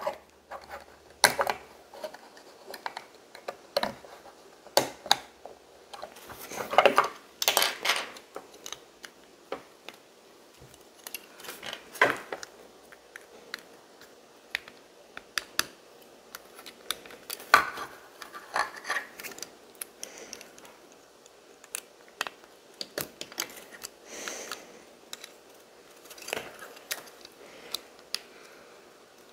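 Small plastic LEGO pieces clicking and clattering as they are handled and pressed together, in scattered sharp clicks with a few short rustles between.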